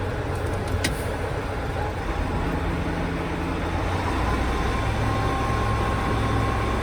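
Dump truck engine running while the tray is raised. About four seconds in, the engine note strengthens and a steady high tone starts and holds: the tray height alarm sounding as the tray passes its set height.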